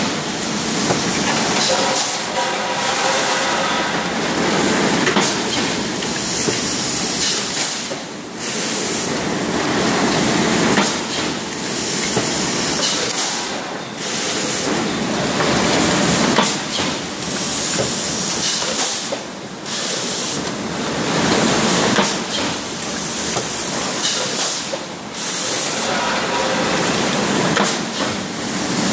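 Automatic PET bottle stretch blow moulding machine running: steady mechanical clatter of the preform chain conveyor mixed with continuous hissing of compressed air, briefly easing off about every five to six seconds.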